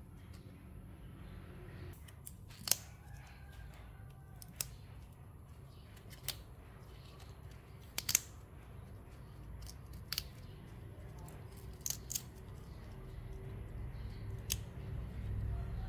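Sharp little snaps, scattered a second or two apart, as fresh flower stalks and buds are pinched and broken off by hand. A low steady rumble runs underneath.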